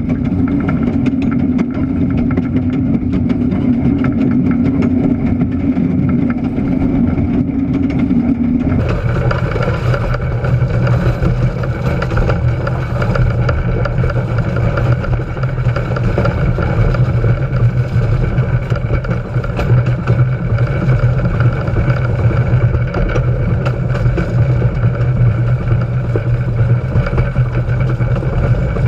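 Steady rumble of a slow-moving steam locomotive's running gear and wheels on the rails, heard from low on its frame, with no clear exhaust beat. About nine seconds in the sound changes abruptly to a different, similar rumble.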